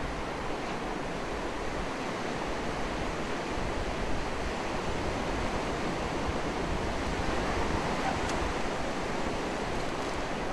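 Steady rush of ocean surf on the shore, swelling a little now and then.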